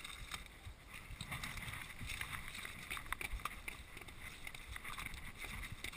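Mountain bike rolling over loose stones: irregular clicks, knocks and rattles from the tyres and frame, over a low rumble.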